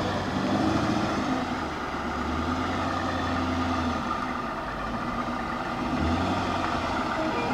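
2002 Chevrolet Corvette convertible's V8 running at idle as it is parked, a low steady note that eases off a little in the middle and comes back near the end.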